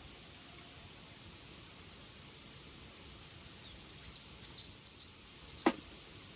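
A few short, high bird chirps about four seconds in, over a steady background hiss, followed near the end by a single sharp snap, the loudest sound.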